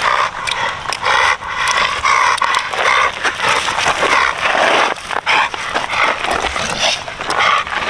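Back-tied dog, worked up by a toy he can see but can't reach, giving a steady stream of high-pitched yelps and whines, about two or three a second.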